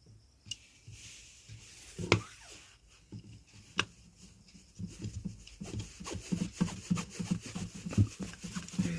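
Screwdriver turning the screw that clamps an amplifier IC to its heat sink. A few sharp clicks come first, then quick, repeated scraping strokes from about five seconds in.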